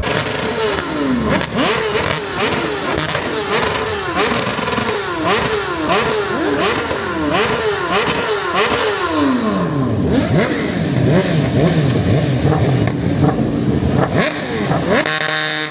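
A vehicle engine is revved again and again in quick blips, its pitch jumping up and falling back roughly once a second. It then drops away in one long fall and keeps running lower.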